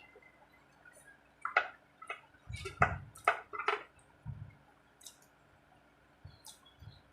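Close-up eating sounds: wet mouth smacks and clicks of someone chewing rice and curry, bunched in the middle, with a few soft low thumps.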